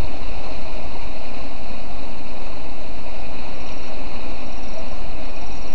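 Heavy rain falling as a steady, loud hiss.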